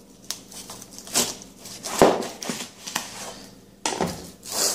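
Large kitchen knife cutting a whole pineapple in half on a plastic cutting board: a series of sharp cuts and knocks, the loudest about two seconds in.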